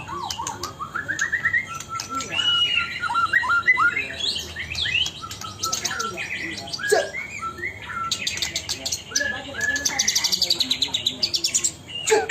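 White-rumped shama (murai batu) singing a continuous, varied song of whistled notes and rising phrases, with a fast rapid-fire run of repeated notes near the end.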